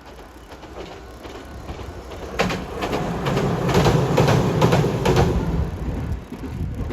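A train passing close by: a rising rumble with a quick run of clacks as its wheels cross rail joints, loudest in the middle and fading away near the end.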